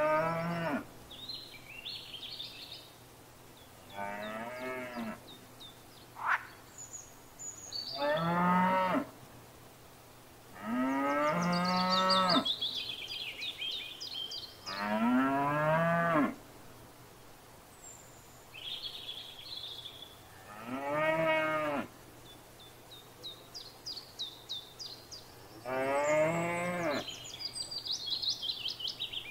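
Cattle mooing: about seven long, drawn-out moos, each a second or so, coming a few seconds apart. Small birds chirp faintly between them.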